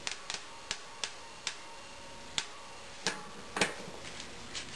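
Socket and wrench tightening a bicycle cassette lockring: about seven short, sharp metallic clicks at uneven intervals.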